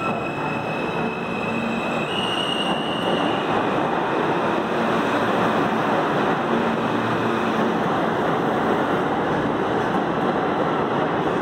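New York City Subway F train pulling out of the station and gathering speed. A high electric whine steps up in pitch about two seconds in, then gives way to a steady rushing rumble of wheels on rail.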